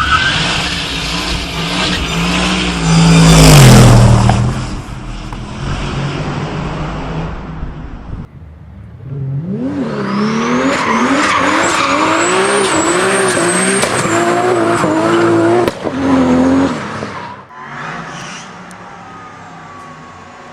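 Forced-induction performance car engines. One engine revs hard and falls away. Another accelerates through several gears, its pitch climbing and dropping back at each shift, with a high whine rising alongside it.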